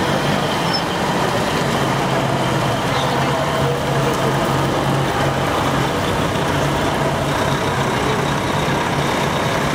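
Heavy diesel truck engines running steadily at close range, a deep even hum with a low held tone and no revving or sudden blasts.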